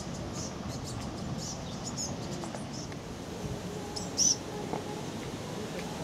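Azure tits calling: short, high-pitched notes scattered through, the loudest one about four seconds in.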